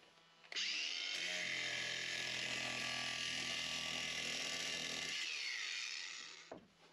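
Ryobi cordless angle grinder starting up and running steadily with a high whine, its disc worked against the lid ring of a metal paint tin, then switched off and spinning down near the end.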